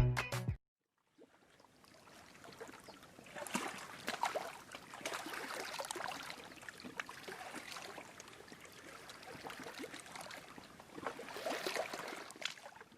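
Faint water lapping and splashing, with irregular small splashes and crackles that swell a little around the middle and again near the end.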